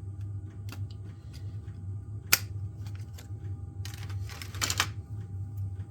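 Light clicks and a short scraping rustle as a laptop's RAM modules and motherboard are handled, with one sharper click about two seconds in, over a steady low hum.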